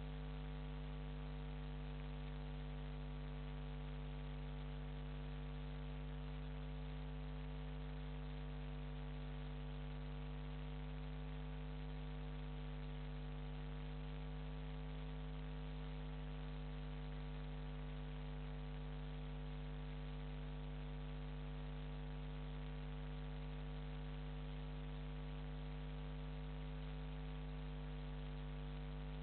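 Steady electrical mains hum, a low buzz with many overtones that does not change at all.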